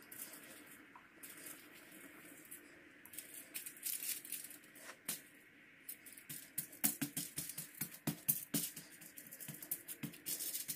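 Faint, irregular crinkling and tapping of aluminium foil as flour tortillas are pressed and handled on it, growing busier from about three seconds in.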